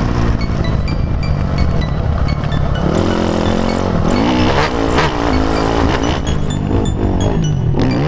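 Motocross bike engine revving up and down as the rider works the throttle through a turn and along a straight. Background music plays over it.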